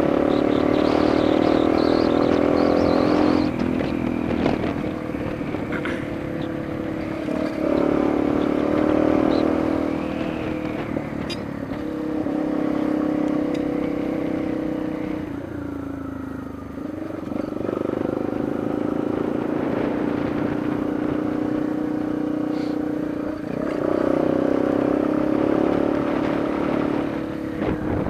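Yamaha Lander 250's single-cylinder four-stroke engine running under way, its pitch rising and falling with the throttle and gear changes. About halfway through the revs sink with a falling pitch, then climb again, and the engine is loudest again near the end.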